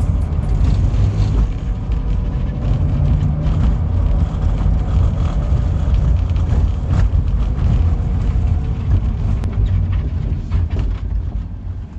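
Car running with a steady deep rumble, its level dropping near the end.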